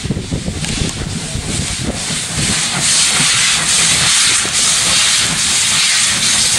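Steam locomotive moving slowly past with a loud, steady hiss of escaping steam, which swells about two and a half seconds in, over a low rumble of the train.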